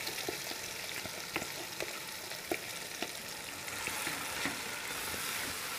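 Marinated chicken sizzling steadily in hot oil with fried onions and tomatoes as it is stirred with a slotted spoon, with scattered light clicks and scrapes.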